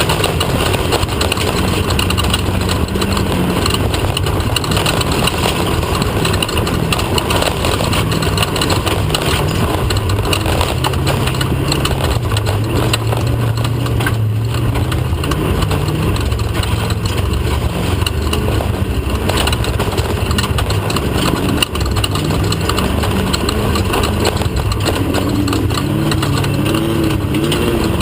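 Off-road race vehicle's engine running hard under a steady rush of driving noise, the revs shifting up and down, then climbing in the last few seconds.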